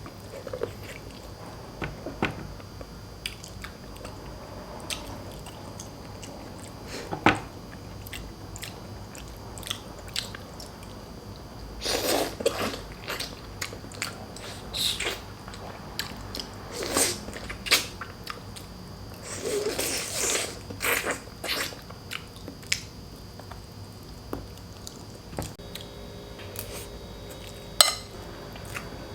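Close-miked eating sounds: a person chewing and biting through a meal of boiled pork hock and rice, with irregular mouth clicks and smacks that come thicker and louder about halfway through.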